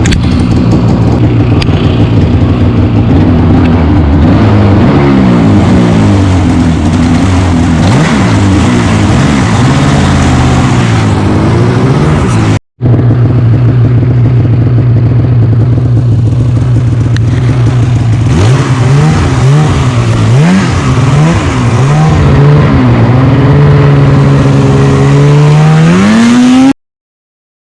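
Polaris Switchback Assault snowmobile's two-stroke engine running loud and revving, its pitch rising and falling again and again with the throttle. There is a split-second break a little under halfway through, then a steadier stretch, and the engine climbs in pitch near the end before the sound cuts off abruptly.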